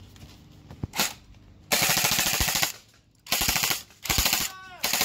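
Airsoft gun firing full-auto: a short blip, then three bursts of rapid shots, the first about a second long and the other two shorter.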